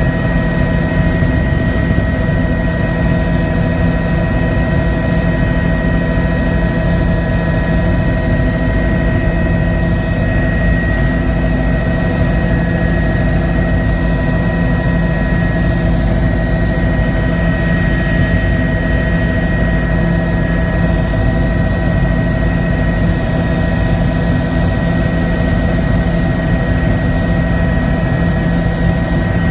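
Helicopter in flight, heard from inside the cabin: a steady low rumble of engine and rotors with a constant turbine whine made of several high tones.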